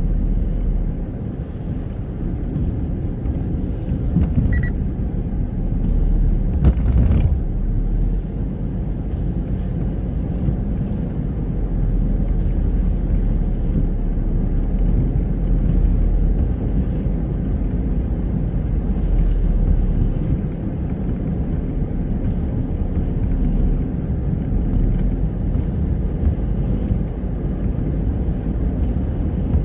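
Car driving on a rain-wet road, heard from inside the cabin: a steady low rumble of tyres and engine, with a single knock about seven seconds in.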